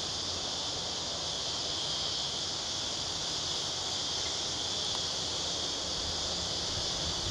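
Steady, high-pitched insect drone, typical of a cicada chorus, over a low haze of wind.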